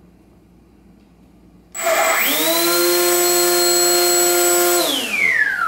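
Walkera E-Eyes plane's outrunner brushless motor and propeller spinning up under throttle about two seconds in. It holds a steady whine, then winds down in a falling whine near the end.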